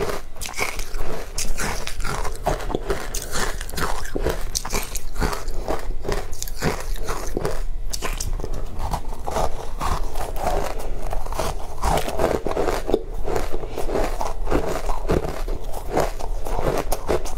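Powdery frozen ice being bitten and chewed close to a microphone: an unbroken run of crisp crunches.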